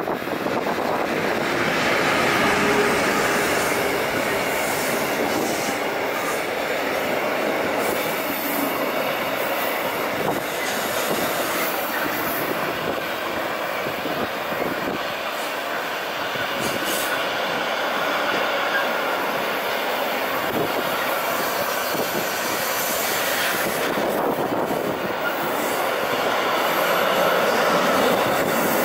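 Train running on the line: steady noise of wheels on rails, a little louder near the end.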